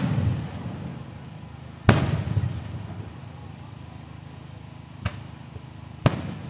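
Aerial fireworks shells bursting: the rumbling tail of a blast at the start, a loud bang about two seconds in that rumbles on for a second, a smaller crack about five seconds in and another sharp bang just after six seconds.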